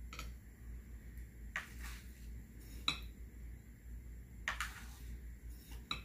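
Metal tablespoon scooping dry powder in a glass mixing bowl, clinking and scraping against the glass about five times at irregular intervals, some clinks with a brief ring.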